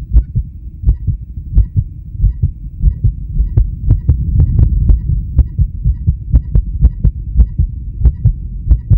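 A man's heartbeat heard through a stethoscope: regular low thumps, a little faster than one a second, some in lub-dub pairs, over a steady low rumble.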